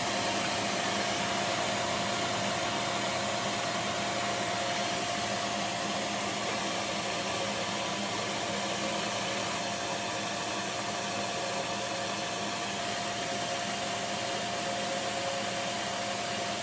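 A powered shop machine running steadily with a whirring noise and a faint steady hum. It switches on sharply just before and cuts off suddenly at the end.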